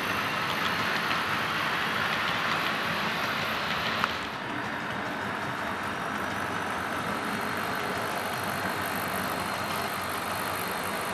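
HO-scale model freight train running on the layout, a steady rolling noise of wheels on track. About four seconds in there is a click, after which the sound is a little quieter with a faint steady high whine.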